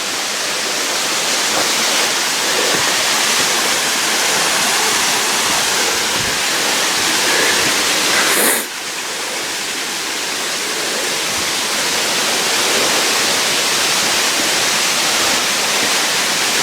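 Waterfall rushing, a steady loud hiss of falling water, with a short click and a brief drop in level about halfway through.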